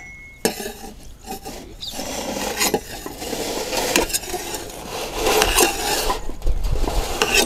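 Scraping and clinking of metal cookware as a baked pizza base is shifted off a cooking tray onto a metal plate, with a few sharp knocks of metal on metal along the way.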